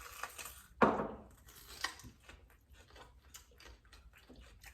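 A single sharp crunch about a second in as a Takis chip loaded with jalapeño cream cheese is bitten, followed by faint crackling chewing.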